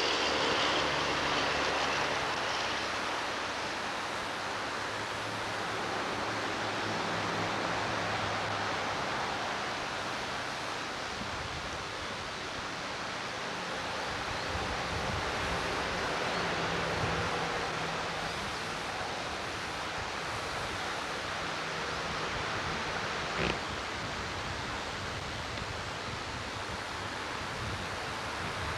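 Steady rushing roar of a creek in flood. A faint low hum runs under it through the middle stretch, and a single sharp click comes about 23 seconds in.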